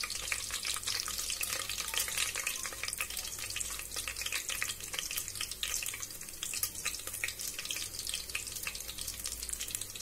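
Whole spices (fennel seeds, bay leaves, cinnamon and star anise) sizzling in hot oil in an aluminium pressure cooker: a steady hiss with a dense run of small crackling pops as the spices fry toward golden brown.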